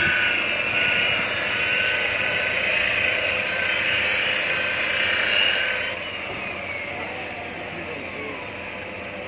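Corded handheld electric rotary polisher with a round pad running against a car's painted door: a steady high whine. About six seconds in it is switched off and the motor winds down, its pitch falling.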